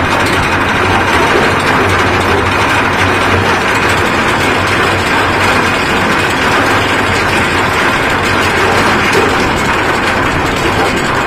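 Ship's anchor windlass as the anchor chain pays out: a loud, steady mechanical clatter with a low hum underneath, holding level throughout.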